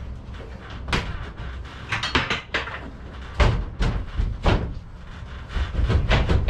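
Irregular knocks and clatter of the plastic panels and frame of a greenhouse shed being worked loose by hand overhead, with a few heavier thumps about halfway through.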